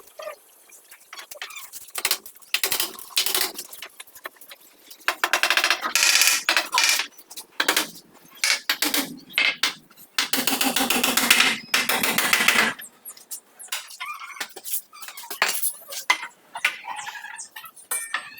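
Hand work on wood: scattered knocks and clinks, with two long scraping strokes, one about five seconds in and one about ten seconds in.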